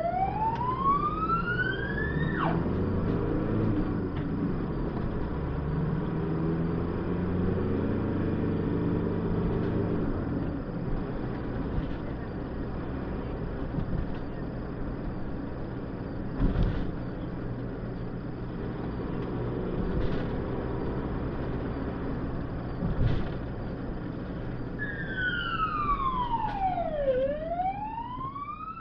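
Ambulance siren sweeping down and back up in pitch, cut off a couple of seconds in. Then the ambulance's engine and road noise as it drives on, with a few thumps. Near the end the siren sweeps down and up again.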